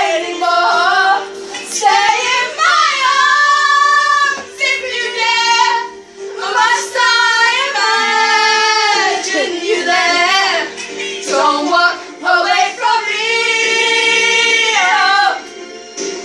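Young women singing loudly over music, holding long notes, with some lines swooping in pitch.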